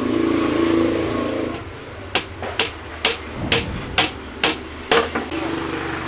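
A steady droning hum for the first second and a half, then hammer blows on the wooden subwoofer box, about seven strikes at roughly two a second.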